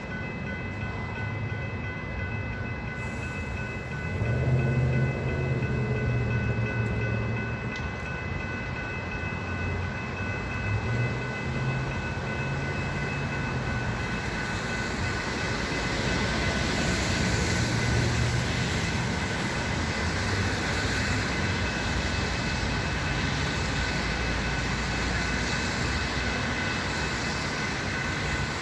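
Metra commuter train with a diesel locomotive at the station: a low engine throb that comes and goes over a steady high whine, with the rumble of the moving train growing louder from about halfway through.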